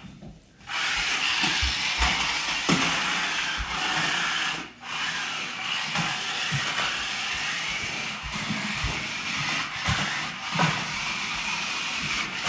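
Toy RC stunt car's small electric motors whining steadily as it drives on a hardwood floor, with scattered knocks from the car. The whine starts about half a second in and cuts out briefly about a third of the way through.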